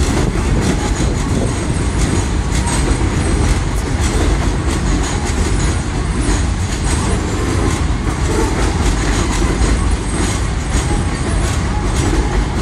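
An elevated subway train rolls past on a steel elevated structure: a loud, steady rumble, with its wheels clacking over the rail joints.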